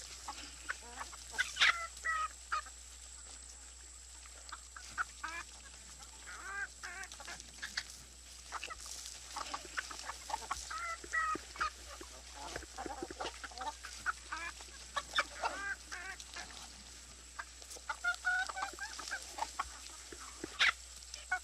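Farmyard poultry calling in many short, scattered clucks and squawks, several birds at once.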